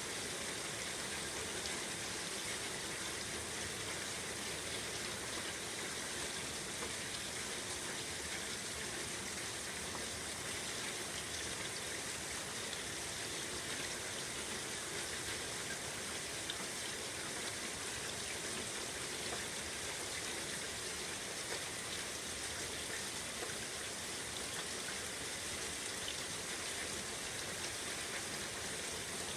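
Steady rainfall, an even hiss of drops falling on surfaces.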